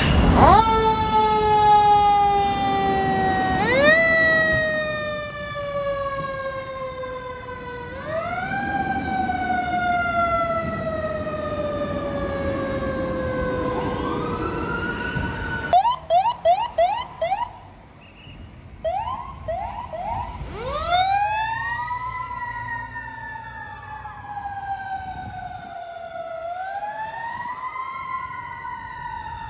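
Fire engine sirens, each rising quickly and then falling slowly in pitch, again and again over a low engine rumble. About halfway through comes a quick run of short blasts, and then the siren winds up and falls away again twice.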